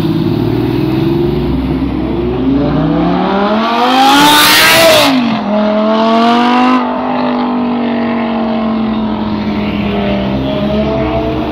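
Sports car accelerating hard away: the engine revs climb steadily for about four seconds to a loud peak, drop sharply at a gear change, then settle into a steadier, lower note as it pulls away.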